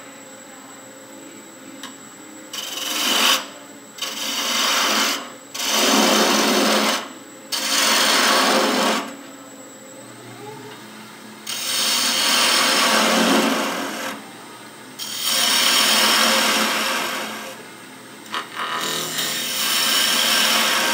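Wood lathe running while a hand-held turning tool is pressed against the spinning wood in seven separate cutting passes, each a scraping rush of one to two and a half seconds, with only the lathe's hum in the gaps.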